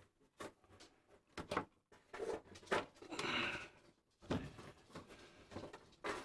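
Handling noises: a string of small clicks and knocks with rustling, one longer rustle about three seconds in, as wire connectors and wiring are worked by hand.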